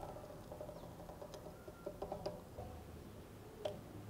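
Faint, scattered metallic clicks and ticks from a spanner working the axle nut on a bicycle rear hub, with the steel cassette sprockets ringing lightly at each click.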